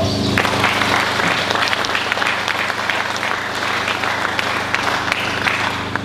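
Audience applauding: many hands clapping, starting just after the beginning and dying away near the end.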